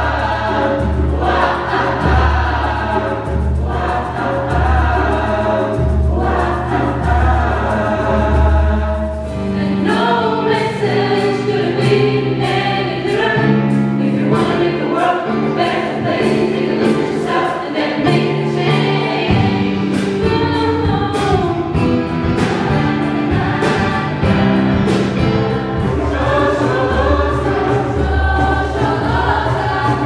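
Mixed choir of men's and women's voices singing in harmony with band accompaniment. A low bass pulse beats about once a second at the start and again near the end, with sharp percussion strokes through the middle.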